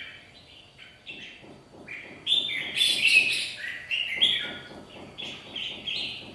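Red-whiskered bulbuls giving quick, chattering calls back and forth in short bursts, loudest about two to three seconds in. This is the agitated calling of caged bulbuls squaring off against a rival.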